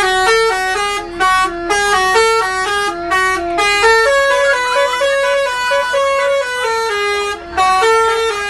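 Bus's basuri telolet horn, a set of musical air horns, playing a tune of short stepping notes, with brief breaks at about one, three and seven and a half seconds in.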